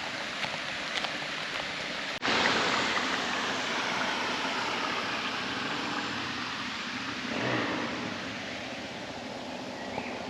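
Steady rush of flowing creek water. About two seconds in, a quieter steady background cuts abruptly to the louder water sound.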